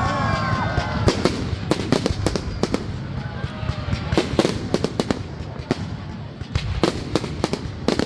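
Fireworks going off in an irregular run of sharp bangs and crackles, several a second.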